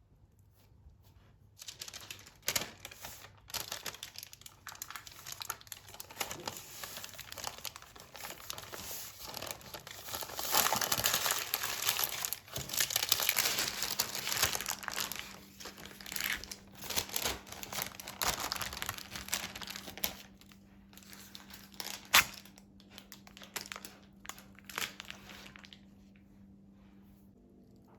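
Paper or plastic packaging being crinkled and handled in irregular rustles, loudest about halfway through, with a single sharp tap near the end.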